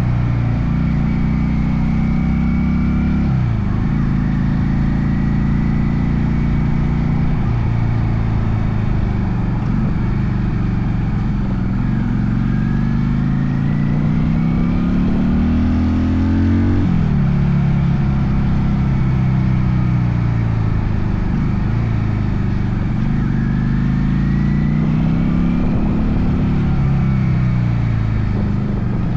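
Honda Steed VLX 400's V-twin engine under way, its pitch climbing as the bike accelerates and dropping sharply at each gear change every few seconds.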